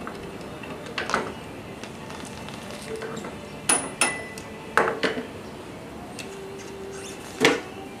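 Motorcycle rear brake caliper being worked by hand against the disc rotor and its mounting perch: about five scattered metallic clinks and knocks, two close together near the middle with a short metallic ring.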